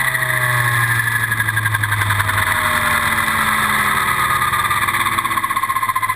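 Kasama Srimok 90E radio-controlled helicopter winding down on the ground after landing: its motor and gear whine slowly falls in pitch while the rotor beat grows slower and more distinct near the end.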